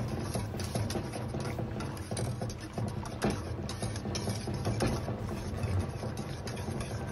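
Wire whisk stirring liquid in a stainless-steel pot, its wires clicking and scraping irregularly against the metal, over a steady low hum.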